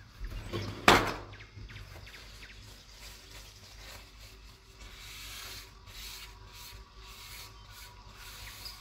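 Paper towel wiping cooking oil around a nonstick frying pan, a soft rubbing swish in short strokes. A single sharp knock comes about a second in.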